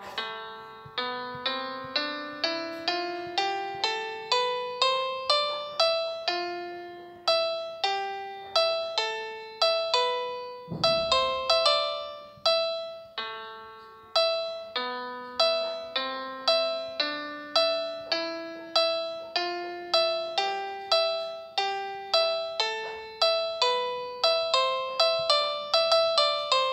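Background piano music: a gentle, evenly paced melody of single struck notes, each ringing and fading before the next.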